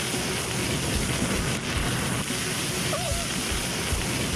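Turkey-fryer oil fire burning with a steady rushing roar.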